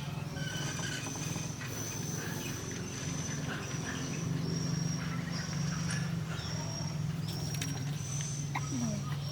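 Outdoor ambience with a high, thin call repeated about once a second, from an insect or small animal, over a steady low hum.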